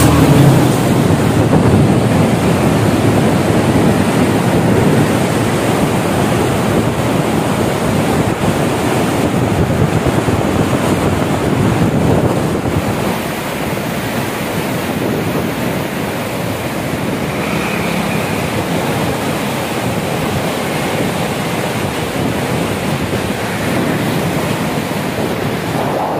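Swollen river floodwater rushing and churning through the gates of a barrage, a steady noise of fast-moving water mixed with wind buffeting the microphone. It eases a little about halfway through.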